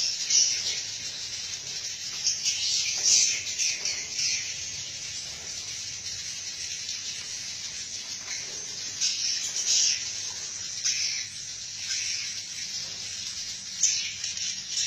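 Swiftlets twittering: a steady run of high, rasping chirps coming in irregular bursts, with a faint low hum underneath.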